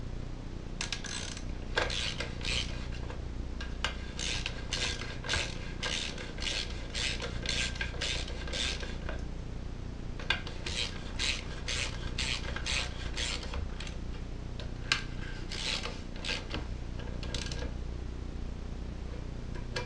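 Socket ratchet wrench with a 7/16 socket clicking on its back-strokes as the muffler bolts are run in. The strokes come in runs of about two a second, with a short pause about halfway through and only a few strokes near the end.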